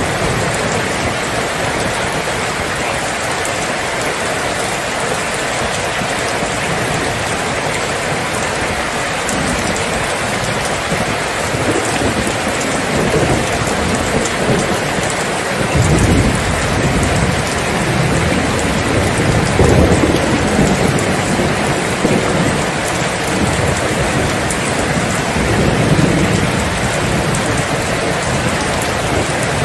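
Steady rain, with low rolling thunder that builds from about halfway through and swells several times.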